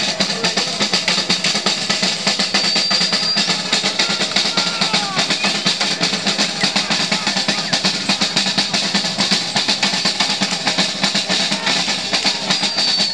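Live band music driven by fast, busy drumming, with a steady beat throughout.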